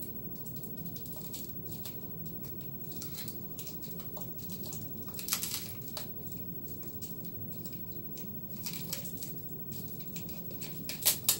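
Fingernails scratching and peeling a stuck paper label off a clear plastic bowl: scattered small scrapes and crinkles, louder about five seconds in and again near the end, over a steady low hum.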